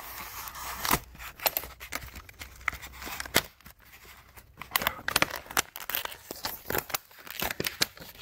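Stiff plastic blister packaging of a battery LED worklight being torn open and handled, with irregular crinkling and sharp plastic crackles and snaps.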